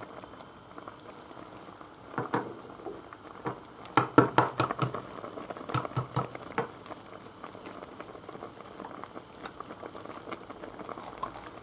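Garlic-and-bread soup boiling in a metal pot, bubbles popping irregularly, with a run of louder pops from about two to seven seconds in.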